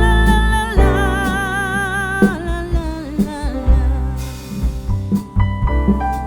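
Background music: a singer holds a long note with vibrato over a steady bass and drum beat, then the line moves on after about two seconds.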